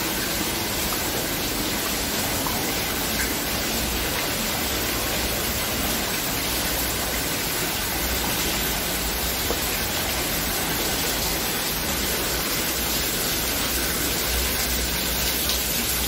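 Steady, even rush of water: a waterfall spilling down rock walls and a shallow stream running over stones.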